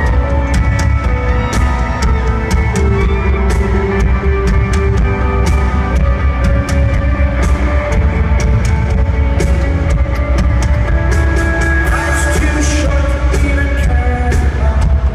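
Live rock band playing loud: drums, heavy bass and guitars, with some singing.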